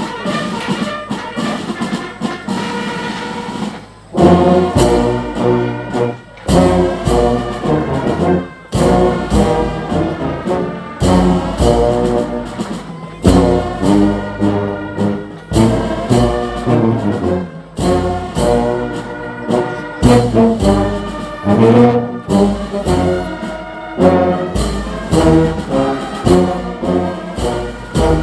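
Brass band playing, brass instruments with bass drums beating a steady pulse. It starts softer and comes in loud about four seconds in.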